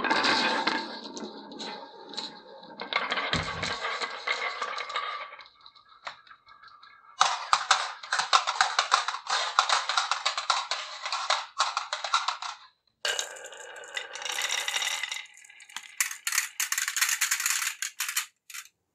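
Glass marbles rolling and clattering down grooved wooden marble-run tracks, a dense rapid clicking. It comes in four runs of a few seconds each with short pauses between, and stops just before the end.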